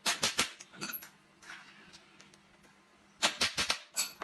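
Two quick bursts of sharp knocks, about five in half a second each: one at the start and one about three seconds in, with a few single knocks between.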